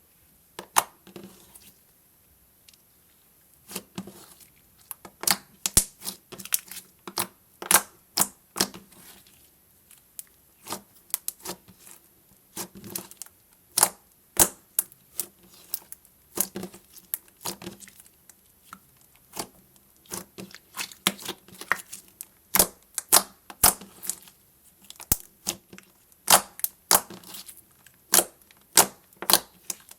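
Slime being squeezed and stretched by hand, giving irregular sharp crackling pops and clicks, several a second, in bursts.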